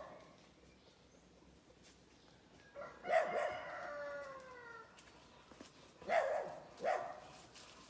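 A dog barking and crying: a long drawn-out cry falling in pitch about three seconds in, then two short barks about a second apart near the end.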